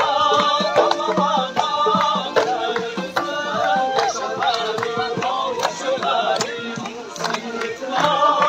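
Live folk music from hand-held frame drums, struck in a quick, steady beat, under a continuous wavering melody line.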